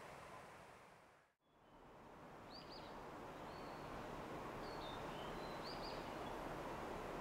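Outdoor ambience: a faint steady hiss of background noise with a few short, high bird chirps in its middle part. The sound fades out to silence and back in about a second and a half in.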